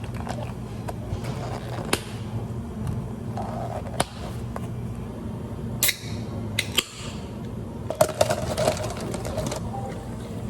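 Drink-making sounds behind a café counter: scattered clicks and knocks of cups and utensils, a quick flurry of them near the end, over a steady low hum.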